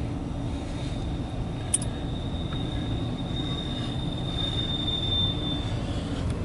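Double-stack intermodal freight cars rolling past with a steady low rumble of wheels on rail. A thin, high wheel squeal holds from about a second in until near the end, and there is one sharp click just under two seconds in.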